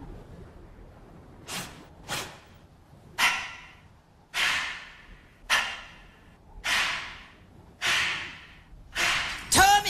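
Recorded heavy breathing, one sharp breath about every second, each fading quickly, as a song intro played back; a voice comes in near the end.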